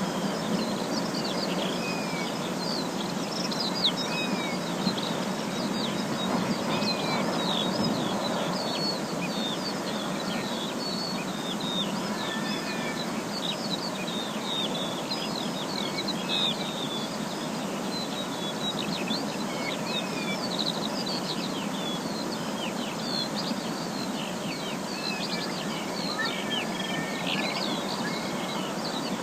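Forest ambience: many birds calling with short, quick chirps and whistles throughout, over a steady background hiss.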